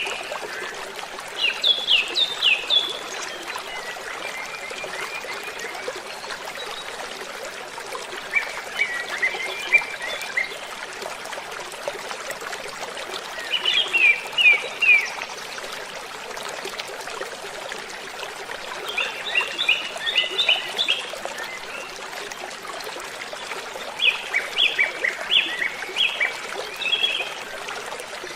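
Steady rush of falling water from a waterfall, with a songbird singing short phrases of quick, high chirps five times, every five or six seconds.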